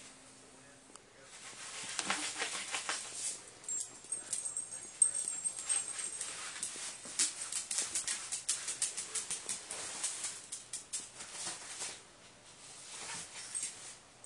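A small Havanese dog tugging a quilted comforter off a bed: fabric rustling and claws scrabbling on a wood floor in quick, irregular scuffs, starting about a second and a half in and easing off near the end.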